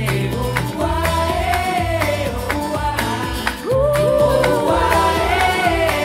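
Pop song with a sung melody over a steady bass line and beat, played back through a pair of iLoud Micro Monitor compact active speakers and picked up by a microphone in the room. There is a brief dip about three and a half seconds in, and the music comes back fuller and louder.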